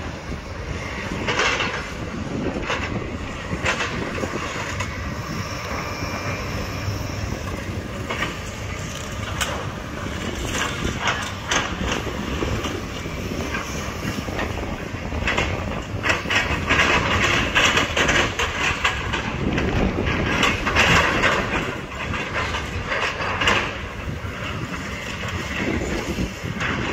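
Tracked hydraulic excavators working demolition rubble: diesel engines running under a steady low rumble, with repeated clanks and clatters of buckets and broken concrete, busiest in two stretches a little past the middle.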